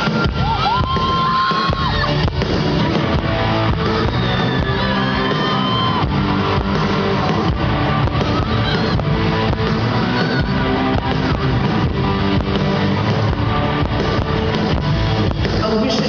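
Live band playing a song on electric guitars and drums, with a steady beat, during a sound check.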